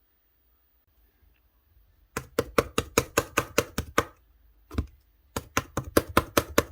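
Slime being pressed and poked by hand, making quick clicking pops about five a second. The run starts about two seconds in, breaks off for a moment with one lone pop, then picks up again near the end.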